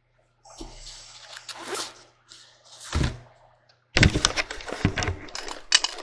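Rustling and rubbing right against the camcorder's microphone as a body moves against the camera on the bed, with a single low thump about three seconds in and a dense crackling of handling noise from about four seconds on.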